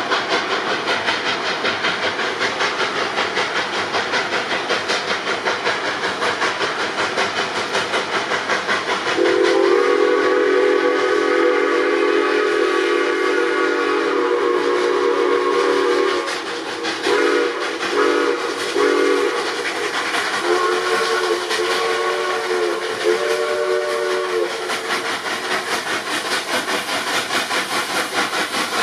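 Coal-fired narrow-gauge steam locomotives running with rapid, steady exhaust beats and hiss. About a third of the way in, a steam whistle sounds one long blast, then three short toots, then two more short blasts at a slightly different pitch.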